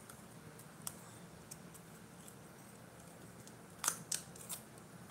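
A few small plastic clicks and snaps as the lid of a small jar of loose glitter is worked open: one light click about a second in, then a quick run of three sharper snaps near the end.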